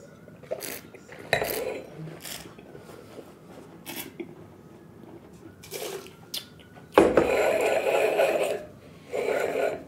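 Wine-tasting mouth sounds: sipping and slurping red Cabernet Sauvignon, then spitting it into a metal spit bucket, in short wet bursts. A louder rush of noise lasting under two seconds comes about seven seconds in.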